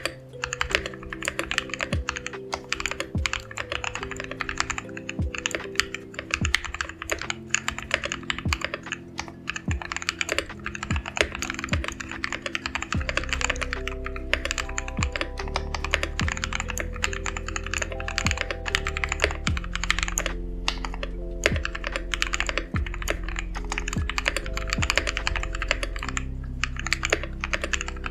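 Continuous fast typing on a mechanical keyboard fitted with JWK FFF switches: a dense, steady stream of key clacks. Background music plays underneath, with a bass line coming in about halfway through.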